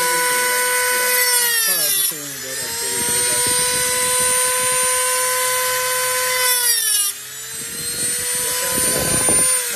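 Small corded rotary tool with a cutoff disc running at a high, steady whine while cutting through a metal finger ring. The pitch dips twice, about two seconds in and about seven seconds in, and starts to fall near the end.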